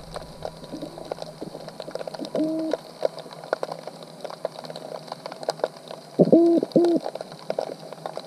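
Underwater sound picked up by a camera inside a submerged crab trap: a constant crackle of sharp clicks, with one short low hoot about two and a half seconds in and two more close together near the end.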